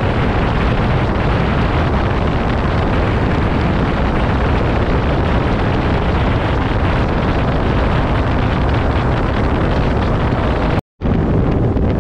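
Steady wind rush over the microphone of a moving sport motorcycle, mixed with its running noise. It cuts out completely for an instant near the end.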